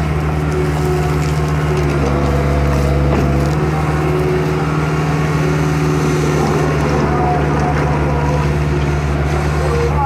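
Bobcat S450 skid steer loader's diesel engine running steadily under working load while the machine drives forward, spreading soil from its bucket.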